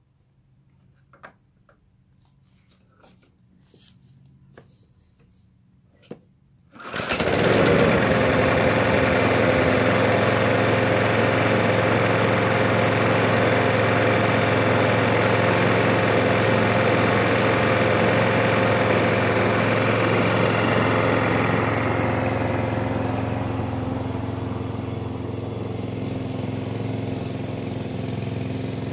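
Hyundai petrol lawnmower engine being started on its repaired recoil starter: after a few faint clicks it catches suddenly about seven seconds in and runs steadily, a little quieter near the end.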